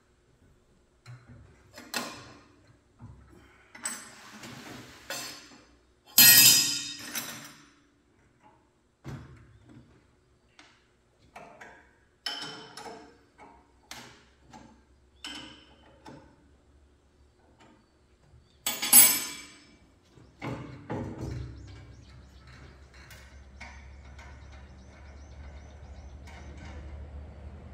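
Irregular knocks, clicks and clanks of tools and parts being handled, with two loud sharp hits, one about a quarter of the way in and one about two-thirds in. Soon after the second hit, a steady low hum starts and slowly grows louder.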